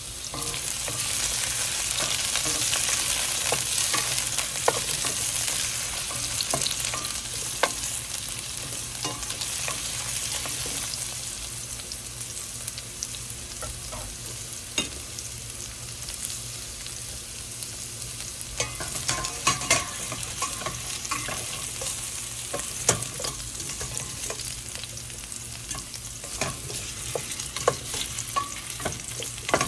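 Food sizzling in a hot frying pan while being stirred, with a utensil scraping and tapping against the pan. The sizzle swells about a second in and eases off after several seconds.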